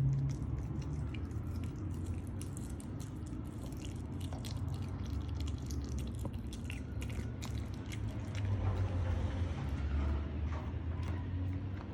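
Miniature dachshund chewing and biting chicken: a run of small, irregular wet clicks and crunches over a low steady hum.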